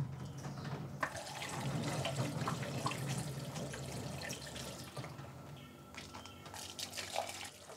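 Palm wine (kalou) trickling and pouring from a bucket and through a cloth filter into a plastic jug at a sink, a steady running-liquid sound with a few small knocks of handling, easing off over the last couple of seconds.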